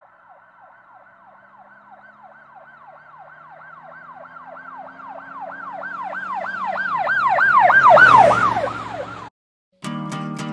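A siren in a fast yelp, sweeping up and down about three times a second. It grows steadily louder, then passes and fades with a rush of road noise and cuts off abruptly about nine seconds in. After a brief gap, strummed guitar music begins near the end.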